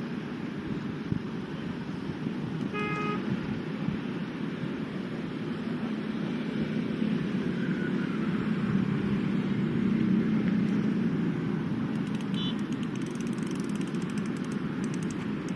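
Steady outdoor road-traffic noise that swells as a vehicle passes in the middle, with a short horn toot about three seconds in.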